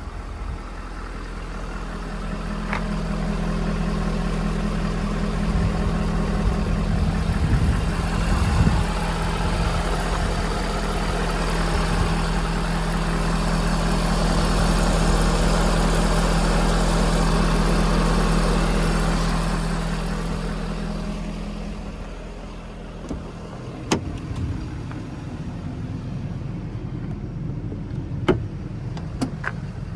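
Ford 6.7 Power Stroke V8 turbo-diesel idling steadily, growing louder toward the middle and quieter after about two thirds of the way through. A few sharp clicks come near the end.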